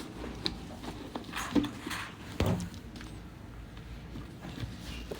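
A calf-leather handbag being handled and opened: a few soft clicks and rustles, the sharpest about one and a half and two and a half seconds in.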